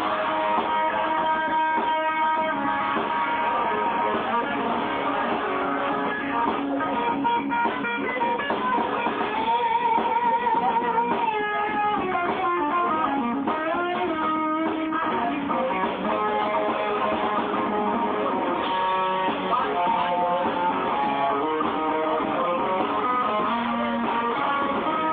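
A live band playing, led by electric guitar, recorded thin and muffled. A wavering held note stands out about ten seconds in.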